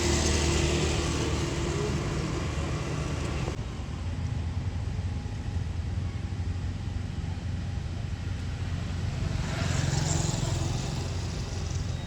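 Road traffic: a steady low engine rumble, louder at the start, which drops off abruptly a few seconds in, and swelling again near the end as another vehicle passes.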